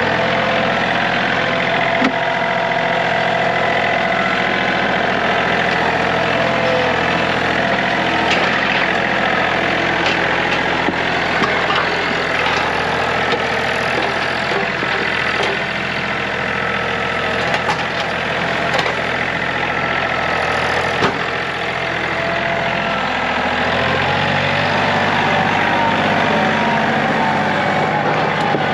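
A vehicle engine running steadily at idle, with a few short knocks and a change in the engine note near the end.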